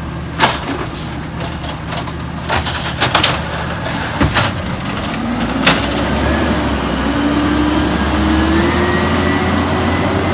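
Peterbilt 320 automated side-loader garbage truck with its natural-gas engine running steadily. Its arm dumps a cart, making a series of sharp knocks and bangs over the first half. After that the truck moves off with a slowly rising whine.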